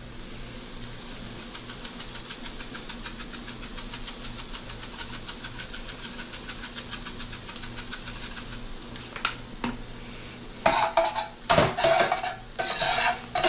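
Garlic sizzling in olive oil and butter in a steel pan, with a fast, even pulse of shaking while chili flakes are shaken in from a jar. From about ten and a half seconds, metal tongs clatter and scrape against the pan as the garlic is stirred.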